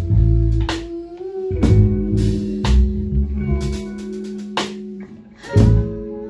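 Live band playing an instrumental passage: guitar and bass over a drum kit, with cymbal and drum hits about once a second and a held melody note that slides up in pitch.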